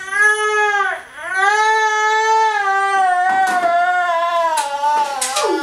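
One-year-old girl crying out from the pain of her vaccination injections: a loud wail, a quick breath about a second in, then one long wail.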